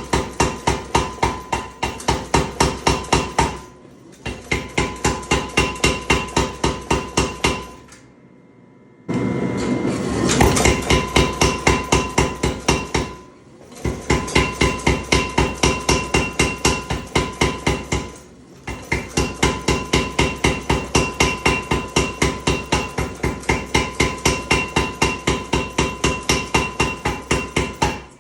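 Power hammer striking steel through a top tool in fast, even runs of about four blows a second, with brief pauses between runs. The strikes ring with a steady metallic tone, drawing out a forging.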